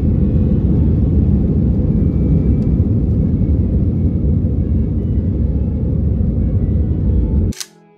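Jet airliner cabin noise during the takeoff roll and liftoff: a loud, steady low rumble of the engines at takeoff power and the wheels on the runway, heard from inside the cabin. It cuts off suddenly about seven and a half seconds in, with a brief high whoosh, and soft string music begins.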